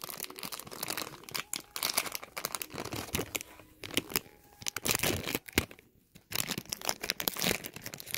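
A small printed toy wrapper being torn open and crinkled by hand, in quick irregular crackles.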